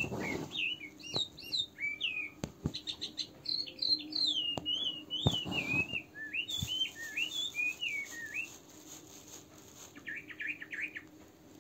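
A small songbird chirping and singing: a run of quick rising and falling notes, then a short rapid trill near the end. A few light clicks sound underneath.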